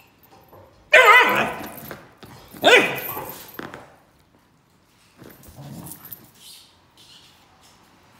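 Dobermann puppy giving two high-pitched, drawn-out barks about a second and a half apart, with a wavering pitch. Quieter rustling follows.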